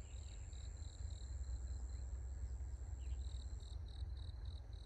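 Insects chirping: a steady high trill that stops a little past the middle, and a pulsing chirp about five times a second that pauses midway, over a low rumble.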